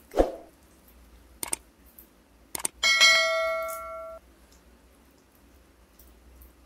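A short thump, then two sharp clicks and a bright bell-like notification ding that rings for about a second and a half before cutting off: the sound effect of a subscribe-reminder overlay.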